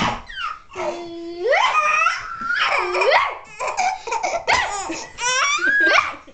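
Baby laughing: a run of high squeals and giggles, each rising and falling in pitch, with short gaps between them.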